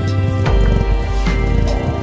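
Background music: sustained chords over low bass notes, with occasional percussive hits.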